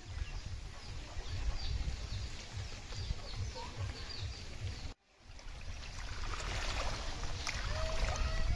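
Outdoor ambience of wind buffeting the microphone over water, with small birds chirping. The sound drops out abruptly about five seconds in, then comes back.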